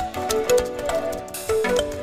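Background music with a melody and a steady beat.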